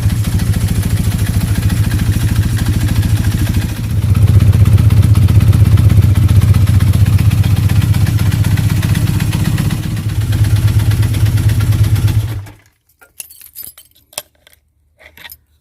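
Old 400 motorcycle engine running with a rapid, even beat. It gets louder about four seconds in, then stops suddenly about twelve seconds in, followed by a few faint clicks.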